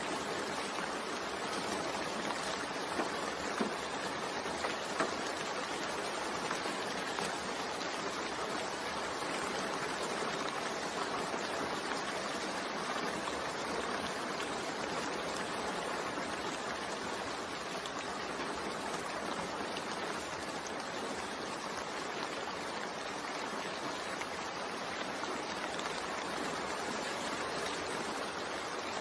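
Steady rain, an even hiss of falling rain with a few slightly louder spikes about three to five seconds in.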